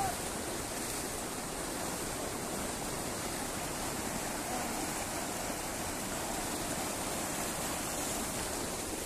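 Fast, muddy floodwater rushing and churning across a dirt field road, a steady rushing noise.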